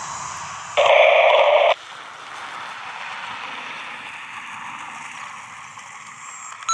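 Airband radio receiver hiss between transmissions, with a brief loud burst of open-carrier noise about a second in, as a transmitter keys up for about a second without speaking.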